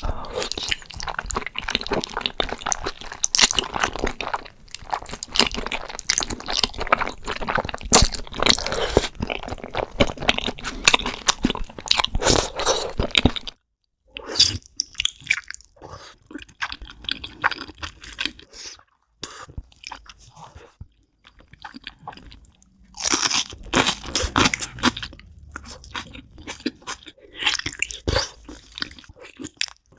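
Close-miked eating of spicy braised beef feet: biting and chewing with many quick crunching clicks. The dense chewing breaks off suddenly about 13 seconds in, turns sparser and quieter for several seconds, then comes back loud near the end.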